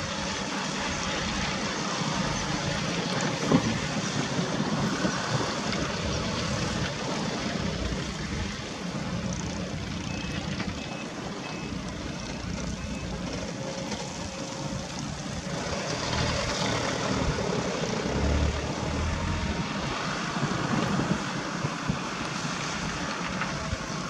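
Diesel engine of an overloaded Isuzu Elf dump truck running steadily as it drives by on a dirt track, with rough-road and tyre noise and a single knock a few seconds in.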